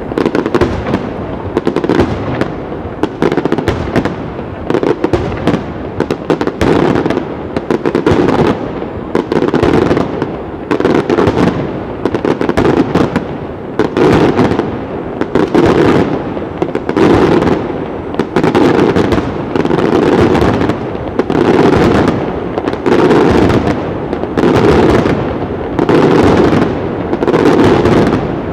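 Aerial firework shells bursting in quick succession: a continuous barrage of sharp bangs over a heavy rumble, the loudest reports coming about once a second.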